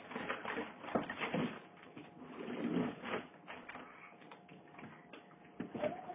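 Cardboard box knocking and scraping against a dresser drawer as it is pushed and jostled, in irregular bumps.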